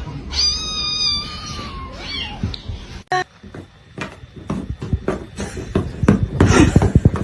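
A domestic cat meows once, a long high-pitched meow of about a second and a half that drops slightly at the end. After a cut, a run of quick taps and rustling follows, growing busier near the end.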